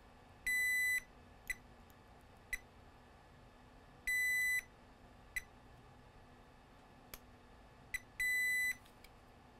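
Digital multimeter beeping three times, each a steady half-second high beep about four seconds apart, as its probe is touched to capacitors on a laptop motherboard to test for a short. Faint ticks come between the beeps.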